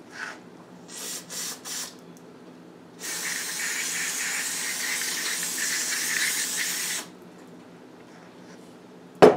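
Aerosol carburetor cleaner sprayed into a small orifice of a scooter carburetor to blow out a clogged passage. It gives a few short puffs about a second in, then one steady hiss lasting about four seconds. A single sharp knock comes near the end.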